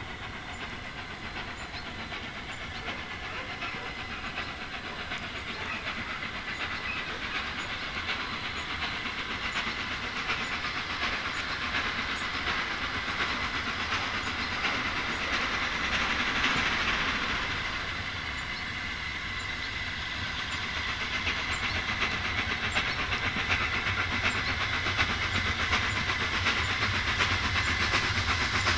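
Flying Scotsman, a Gresley A3 Pacific three-cylinder steam locomotive, working hard with a train up the line towards the listener, its exhaust beating rapidly and growing louder as it approaches.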